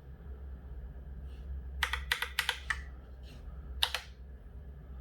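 Keys of a Logitech Pop Keys mechanical keyboard clacking as a pairing code is typed in digit by digit: a quick run of about five keystrokes about two seconds in, then one louder keystroke near the end, likely the confirming press.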